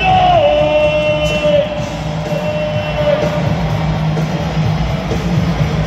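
Rock music with electric guitar played over an arena's sound system. A long held note opens it, slides down slightly at its start and fades about three seconds in.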